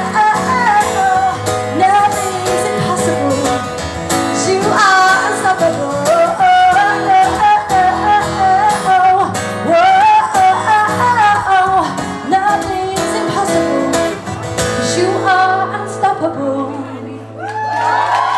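A woman singing a pop song live into a microphone over instrumental backing; the music thins out and the song winds down near the end.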